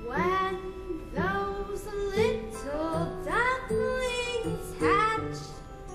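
Song music with a singing voice, each sung note sliding up in pitch at its start, about once a second, over held accompaniment chords.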